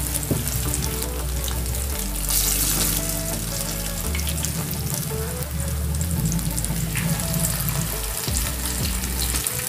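Small moong dal pakoras deep-frying in hot oil in a kadhai: a steady sizzle, with background music underneath.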